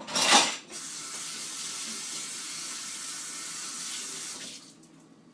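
A sharp knock at the start, then a kitchen tap running steadily for about four seconds before it is shut off.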